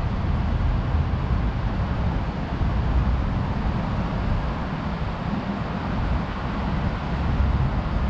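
Steady city street noise: a continuous low rumble of road traffic with no distinct events.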